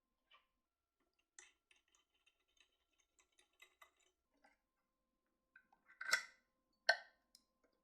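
Sparse light clicks and taps of small tools and parts being handled at a workbench, with two sharper clicks about six and seven seconds in.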